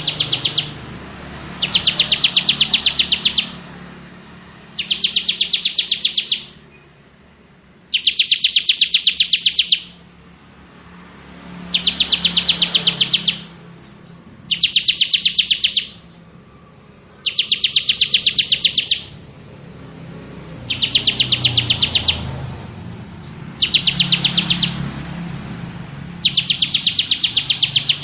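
Bar-winged prinia (ciblek) singing its rapid, drill-like 'ngebren' trill. It gives about ten high buzzing trills, each one to two seconds long, separated by pauses of a second or two.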